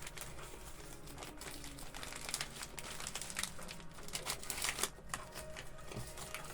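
Packaging crinkling and rustling in a run of irregular crackles as the kit's parts are unpacked by hand, loudest about three-quarters of the way through.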